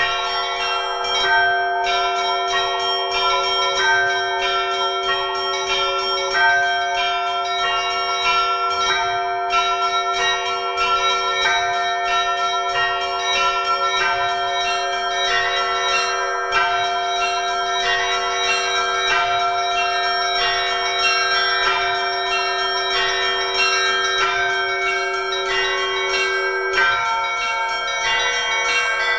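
A small Russian Orthodox belfry of seven bells ringing a continuous peal. The small bells are struck in quick, repeating patterns over the steady ringing of a larger bell. The bells are rung by a newly installed electronic bell-ringing controller.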